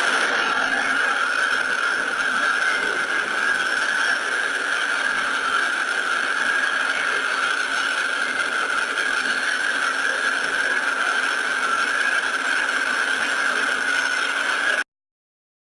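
NASA spacecraft recording of space, converted to audio: a steady, even hiss with a constant high tone running through it, cutting off suddenly near the end.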